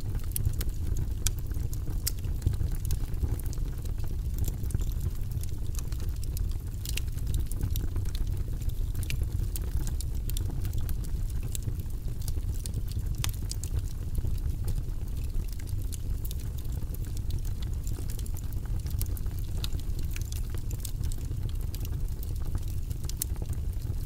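Split wood logs burning in a fireplace: a steady low rush of flames with frequent sharp crackles and pops.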